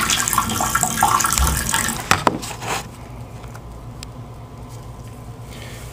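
Water running gently out of a bare threaded tub-spout extension pipe into the bathtub, as the supply is opened a little to test the new pipe for leaks. There is a sharp knock a little after two seconds, and the flow stops about three seconds in.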